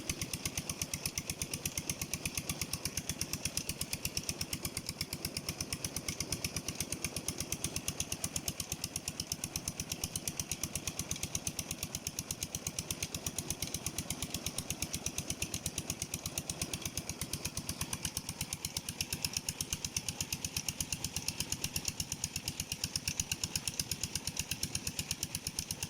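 Engine driving a tube well pump, running steadily with an even, rapid pulse.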